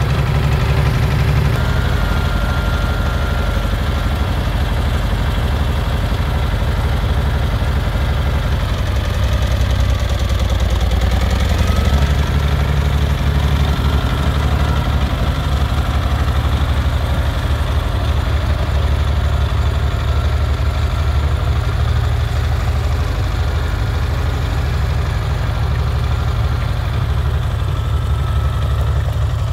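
Farmall 706 tractor's six-cylinder engine running steadily at idle, then pulling the tractor away, its note changing about ten to twelve seconds in.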